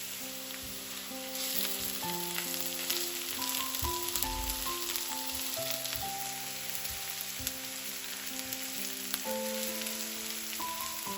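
Food sizzling in hot oil in a frying pan, a steady hiss that grows louder about a second and a half in, with a few light clicks. Soft piano music plays underneath.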